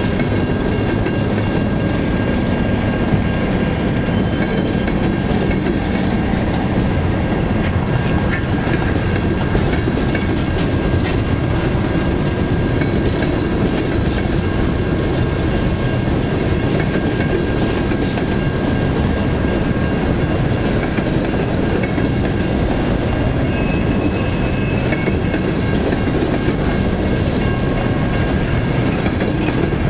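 Loaded freight gondola cars rolling past close by: steady wheel-on-rail rumble with clickety-clack over the rail joints and a faint thin squeal from the wheels.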